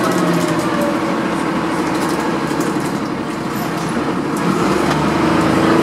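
Dennis Dart single-deck bus engine running, heard from inside the passenger saloon while the bus is moving, with a thin whine above the engine note. The engine eases off in the middle, then pulls harder near the end, the whine rising in pitch.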